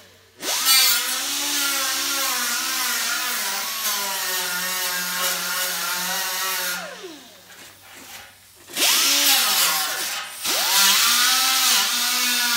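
Pneumatic grinder on an air hose working the steel edge of a pickup bed, its whine wavering in pitch as it bites the metal. It spins down about seven seconds in, starts again a couple of seconds later, and dips once more briefly.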